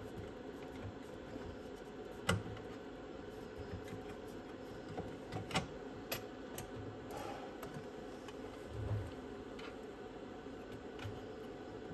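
Sparse clicks and light knocks from hands handling circuit boards and the metal chassis of an opened cassette deck, with the sharpest clicks a little over two seconds in and about five and a half seconds in, over a steady background hum.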